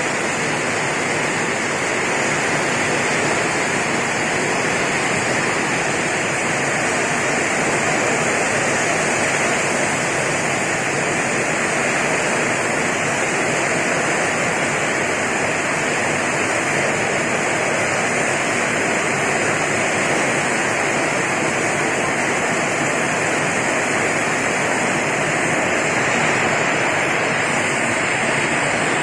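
Heavy downpour of rain falling steadily and evenly, with no breaks or thunder claps.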